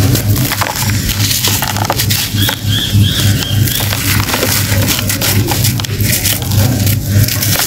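Hands squeezing and crumbling blocks of compressed sand, a dense gritty crunching and crackling of breaking grains, over a steady low hum.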